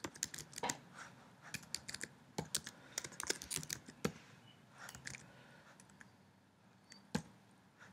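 Typing on a computer keyboard: irregular key clicks in short runs, then a pause of about a second and a half before one last click near the end.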